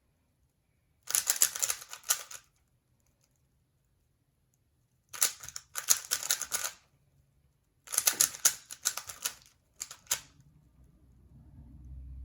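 A 3x3 Rubik's cube being turned quickly by hand: fast runs of plastic layer clicks in four bursts, with short pauses between them.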